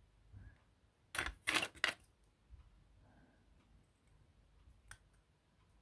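Scissors snipping through paste-coated cotton-wool strips: three or four quick cuts in a cluster about a second in, and one sharp click near the end.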